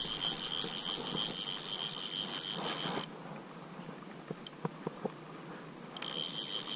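Insects buzzing in a high, pulsing drone that cuts off abruptly about three seconds in and starts again near the end, with a few light clicks in between.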